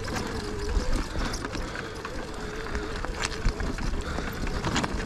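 Sur-Ron electric dirt bike descending a steep, rocky hill: irregular knocks and clatter as the tyres and bike go over loose rock, over a low rumble, with a faint wavering whine in the first second or so.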